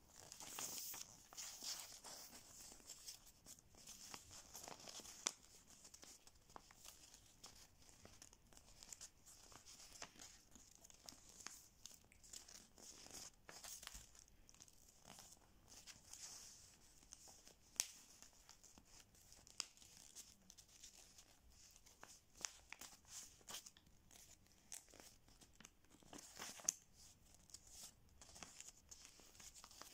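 Faint rustling and crinkling of paper strips being folded and pressed by hand, with scattered short sharp clicks.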